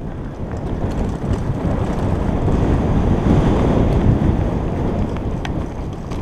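Wind buffeting the microphone on a fast downhill mountain bike descent, a steady low rushing noise, with the rumble of the tyres and bike over a dry dirt trail and a few faint clicks from the bike rattling.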